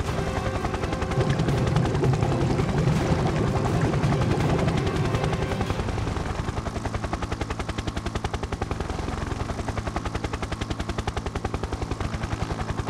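Action-scene sound effects: a steady, rapid chopping pulse, with a heavier low rumble for about the first six seconds.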